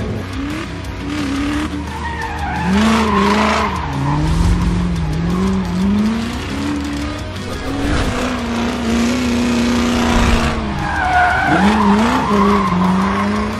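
A car engine revving up and down, with tyres squealing twice, over music.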